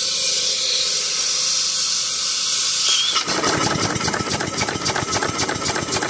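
A Simpson Strickland tandem quadruple-expansion marine steam engine is given its supply: first a steady, loud hiss as it is opened up. About three seconds in, the engine starts turning over and runs with a fast, even beat.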